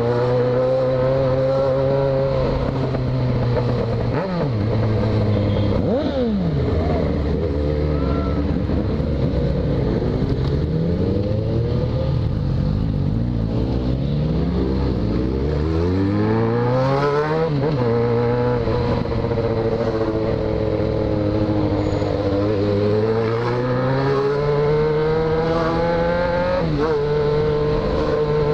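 Yamaha XJ6 inline-four motorcycle engine with a de-baffled exhaust, riding along at speed. The revs climb and then drop suddenly at gear changes several times, with a couple of quick sharp rev blips a few seconds in.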